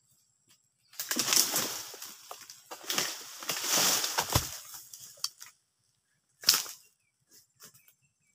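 Oil palm fronds rustling and tearing as a ripe fruit bunch is cut loose with a long harvesting pole, in two long noisy bursts. The bunch lands with a heavy thud about four and a half seconds in, and one short sharp rustle follows about two seconds later.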